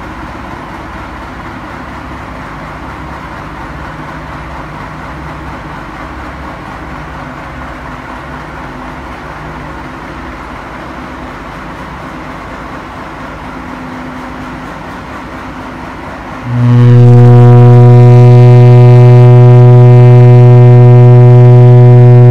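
Foghorn engines running steadily in the lighthouse engine room. About three-quarters of the way through, a compressed-air foghorn starts a long, very loud, steady low note, rich in overtones, that is still sounding at the end.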